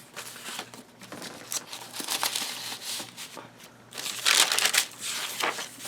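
Paper rustling and crinkling as the pages and tucked-in papers of a handmade paper journal are handled and turned, in irregular bursts that are loudest about four seconds in.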